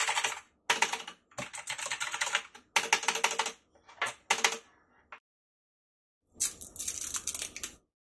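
Rapid typing on a Redgear Shadow Blade MK853 mechanical keyboard, the keys clacking in quick runs for about five seconds. A pause follows, then one more short burst near the end.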